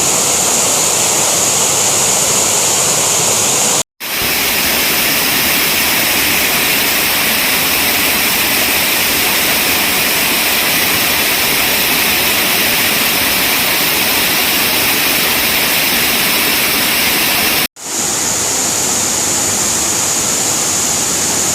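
Waterfall: a steady, dense rush of falling water, broken twice by an abrupt split-second cut to silence, about four seconds in and again about four seconds before the end.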